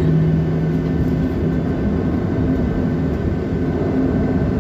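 Steady cabin noise of a Boeing 737-700 with its CFM56-7 jet engines running, heard from inside the cabin: an even rush with a low, steady hum and no rise in power.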